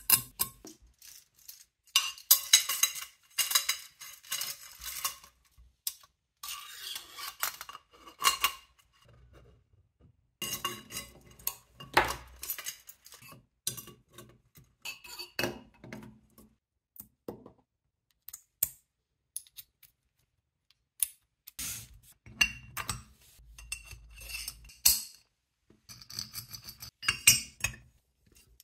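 Metal parts of a turbofan jet engine model kit clinking, clicking and scraping as they are handled and fitted together by hand, in short spells of sharp clinks with quiet pauses between.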